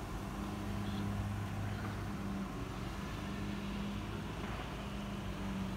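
Steady low motor hum with an even noisy background, its pitch holding while its strength rises and falls slightly.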